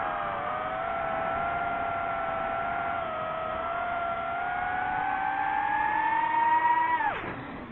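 DJI FPV quadcopter's motors and T-Motor T5143S propellers whining in flight. The pitch dips slightly at first, then climbs slowly as the throttle rises. Near the end it falls away sharply as the throttle is cut.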